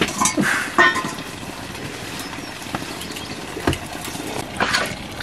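Steady hiss of a wood cooking fire and a pot heating on it, with a few sharp clicks and light knocks scattered through, and a brief voice-like sound about a second in.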